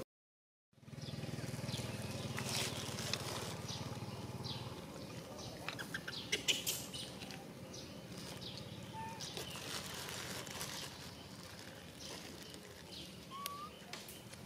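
Outdoor ambience: a steady low hum with light rustling, a quick run of small clicks and rustles near the middle, and two short rising chirps later on. The sound begins only after a brief gap of silence at the start.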